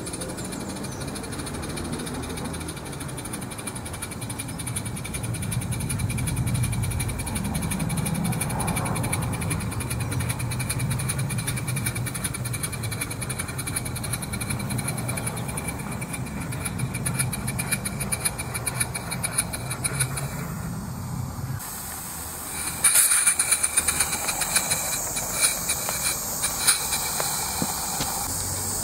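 Live-steam garden-railway locomotive running with a train of coaches: a steady rumble of wheels on track with fast, fine exhaust beats. About two-thirds of the way through the rumble stops suddenly, followed by a run of sharp clicks and hissing as the engine comes close.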